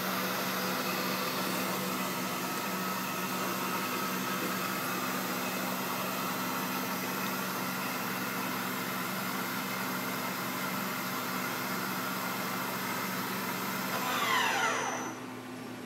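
Miyano Kira KSV-35 vertical machining center running with a steady hiss and low hum. About fourteen seconds in, a falling whine marks the spindle spinning down, and the hiss cuts off.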